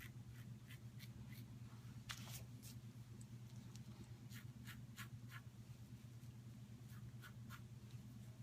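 Faint short scraping strokes of a Merkur Futur safety razor with a Personna Platinum blade cutting stubble through lather against the grain. The strokes come in quick runs of a few, with short pauses between, over a steady low hum.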